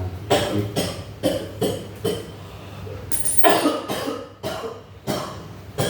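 A person coughing repeatedly in short, sudden coughs: a quick run of them, then a harder fit about three and a half seconds in, and a couple more near the end.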